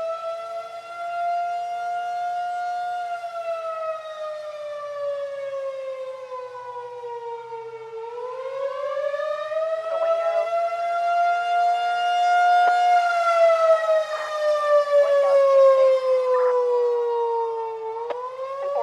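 Federal Signal 2001-SRN rotating electromechanical warning siren sounding the attack signal. Its single tone rises and falls in pitch, climbing for a few seconds and sliding down for longer, about every ten seconds, while the loudness swells and fades as the rotating horn sweeps past.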